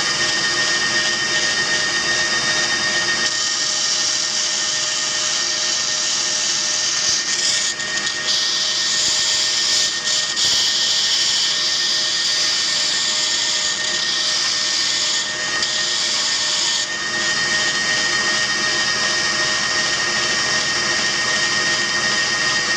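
Home-built 2x48 belt sander running steadily, its motor and belt giving a constant whine over a hiss. From about seven to seventeen seconds in, the hiss grows louder and higher, with a few brief breaks.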